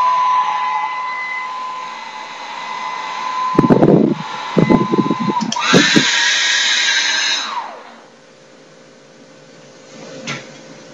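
Revlon RV544 hand-held hair dryer blowing, with a steady motor whine over the rush of air. About five and a half seconds in it is switched to a higher setting: the whine jumps up and gets louder, and a few low rumbling thumps come just before and around the switch. About seven and a half seconds in it is switched off, and the whine falls away as the motor spins down.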